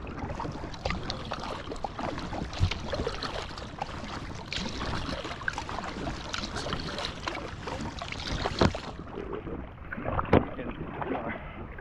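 Paddling a packraft on a lake: the paddle blades dipping and splashing in the water, with a few sharp knocks, the loudest near the end.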